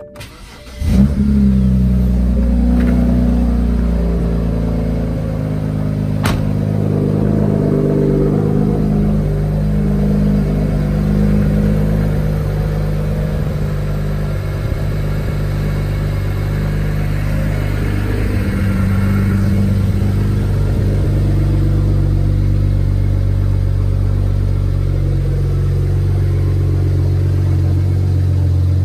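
BMW 535xi's twin-turbo inline-six cranks and catches about a second in, then settles into a steady, smooth cold-start idle.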